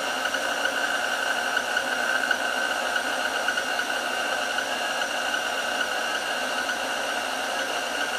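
KitchenAid stand mixer motor running steadily, driving the pasta roller attachment as a sheet of dough feeds through the rollers: an even whir with a steady high whine.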